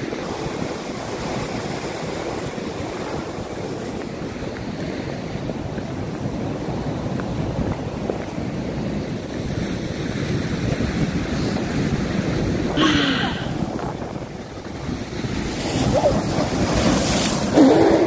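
Stormy sea surf breaking and washing against the rocks of a stone breakwater: a steady rush of waves, with wind buffeting the microphone. It swells louder near the end.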